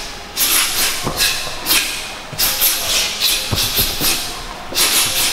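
A boxer's sharp hissing exhales, one with each punch, in an irregular string of about eight quick breaths while shadowboxing. A few dull low thuds, likely from his feet on the mat, come in between.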